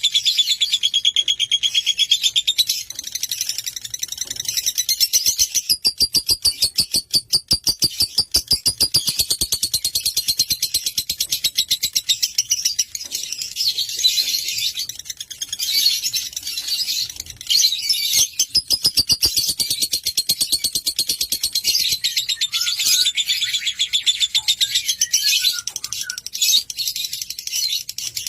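Lovebird singing a long, fast chattering trill of rapidly repeated high notes, going on without a break.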